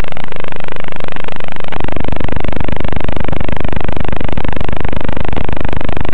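Loud, steady static-like noise from an analog FPV video link's audio, growing heavier in the low end a couple of seconds in.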